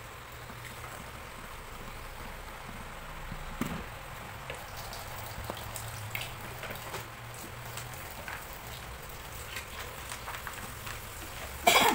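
Tap water running into a plastic container of dish soap, whipping up suds, with scattered light clicks and knocks. There is a short, loud clatter near the end.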